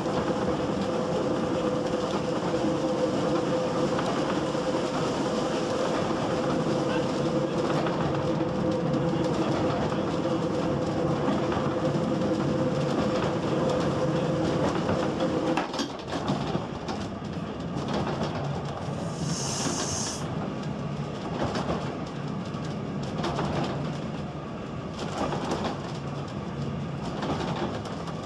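GWR steam railmotor sounds: a steady hum with two held tones for roughly the first half, then a change to rattling and scattered knocks inside the wooden carriage, with a short hiss about twenty seconds in.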